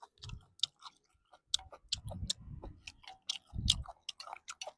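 A person chewing a mouthful of stir-fried cured pork and bamboo shoots close to the microphone: a quick run of sharp wet mouth clicks with a few soft low chewing thuds.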